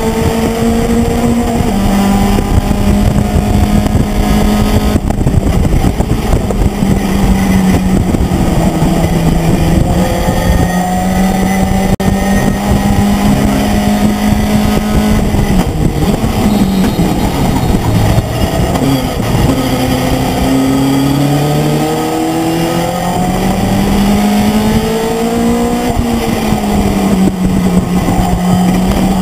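Race pickup truck's engine at racing speed, heard from inside the cab over road and wind noise. The engine note holds steady, drops sharply a little past halfway, then climbs back up over the next several seconds.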